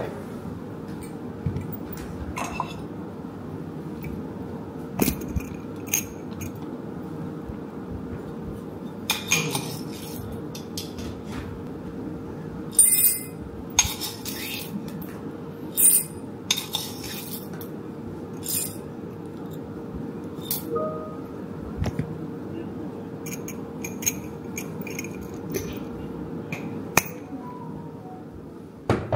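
Metal spoon clinking against a glass clip-top jar as coffee beans are scooped out and dropped into a ceramic bowl: a scatter of short clinks and bean rattles. A steady faint hum runs underneath.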